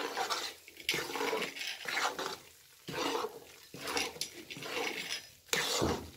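A metal spatula scraping and stirring thick roasted gram-flour (besan) mixture around a metal kadhai, in repeated strokes about one a second. The flour is kept moving off the heat so the hot pan doesn't scorch it.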